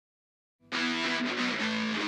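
Intro theme music led by a distorted electric guitar, cutting in sharply after about half a second of silence.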